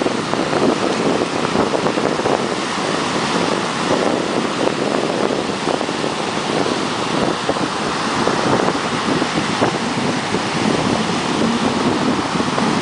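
Steady wind buffeting the microphone, with ocean surf washing on the beach underneath.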